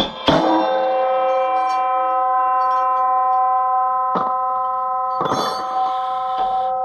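Metal blows on the steel gang of an Oliver 252 disc harrow: a sharp strike at the start, another about four seconds in and a couple more near five seconds. Each sets the steel ringing like a bell, a long steady tone that hangs on between the blows.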